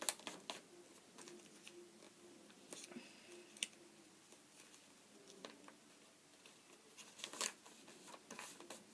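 Sheet of printer paper being handled and folded: soft rustles and a few crisp crinkles as the paper is lined up and creased, the loudest a sharp stroke about seven seconds in.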